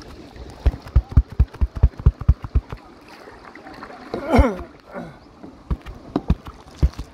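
Water slapping and knocking against a kayak in quick, irregular low thumps, several a second at first. About four seconds in comes a short vocal sound falling in pitch, then a few more scattered knocks.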